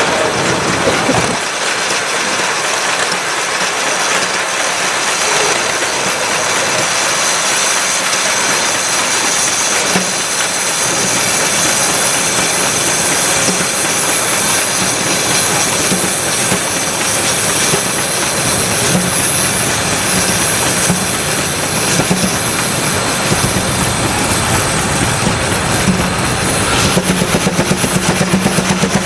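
Case steam traction engine chuffing hard from its stack under the load of driving a sawmill, a dense, continuous exhaust sound. Near the end the exhaust beats become a fast, even pulse.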